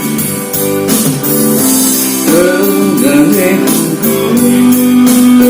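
Instrumental break in a pop ballad: a guitar plays a melody with bending notes over held chords and a steady beat.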